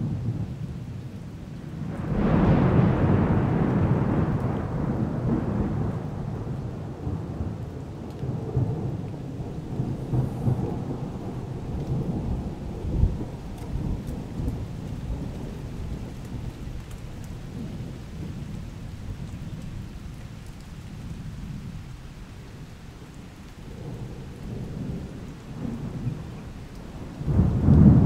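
Rolling thunder: a rumble breaks out about two seconds in and slowly fades over several seconds to a low growl, with another swell near the end.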